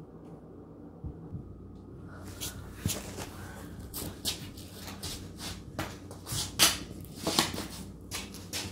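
A low steady hum, then from about two seconds in a run of irregular knocks and clicks, several a second, the loudest near the end.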